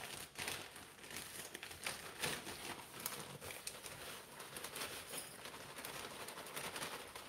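A plastic bag of potting soil crinkling and rustling in the hands, in short irregular crackles, as soil is poured from it into a small pot.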